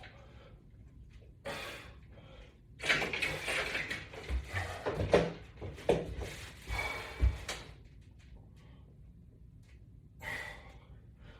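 Rustling and clatter of resistance-band exercise gear being handled, with several dull knocks between about three and seven and a half seconds in, and a short breath-like burst near the end.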